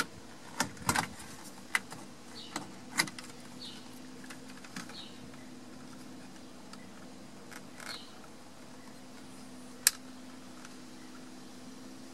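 Scattered small clicks and taps of hands working the horn button off a 1984 VW Westfalia's steering wheel, busiest in the first few seconds, with one sharper click near the end.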